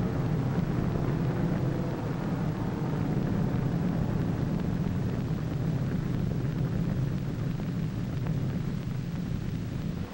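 A steady, low rumbling roar with no clear pitch, holding level throughout.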